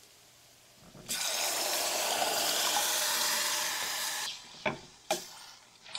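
Canned crushed tomatoes poured into a saucepan of hot olive oil with garlic and onion, hissing and sizzling with steam for about three seconds. Two sharp knocks follow.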